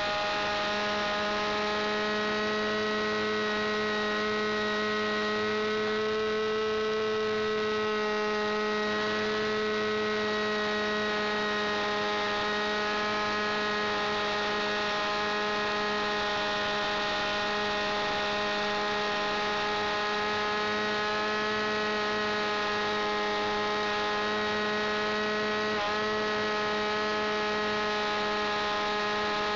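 Internal-combustion engine of a model aerobatic aeroplane running steadily in flight, a constant high-pitched drone that shifts only slightly in pitch, picked up close by a camera inside the model's cockpit.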